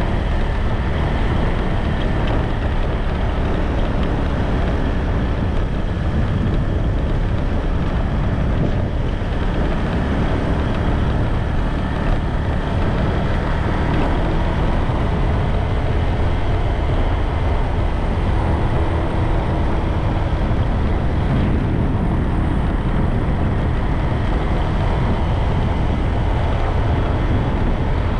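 Steady wind rush buffeting the microphone, mixed with road noise, from a bike riding along a paved road.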